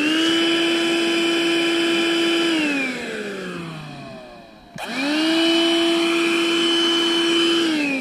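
18-volt cordless vacuum cleaner run in two short bursts. Its motor whine holds a steady pitch for about two and a half seconds, then falls away as it is switched off and spins down. After a click about halfway through it whines back up to speed, holds steady, and winds down again near the end.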